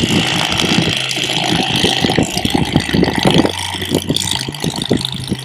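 Bubba Blade cordless electric fillet knife running, its motor giving a steady high buzz while the blades crackle irregularly as they cut through a fish.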